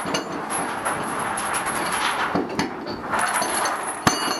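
Steady noise of a military vehicle, with one sharp click about four seconds in.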